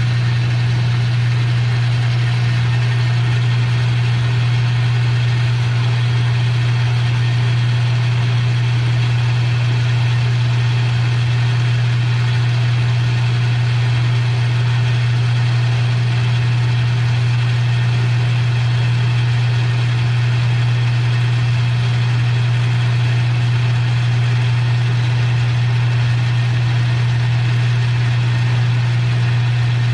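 Metal lathe running steadily under power, taking a light turning cut on a hinge pin, with a strong steady motor hum.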